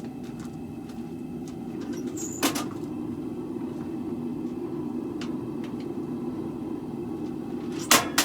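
Steady roar of a propane gas forge burner, with two sharp metallic clanks, one about two and a half seconds in and a double one near the end.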